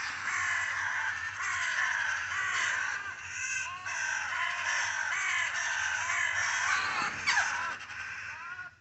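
A flock of birds calling: many short, harsh calls overlapping in a continuous chorus, with one sharper call standing out about seven seconds in.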